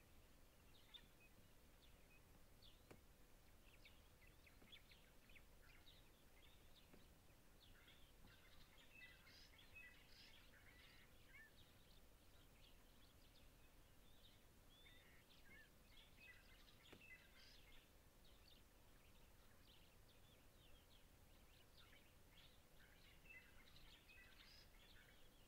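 Faint outdoor ambience with many small birds chirping in quick, short notes, in busier bursts about a third of the way in, just past the middle and near the end, over a low steady hiss.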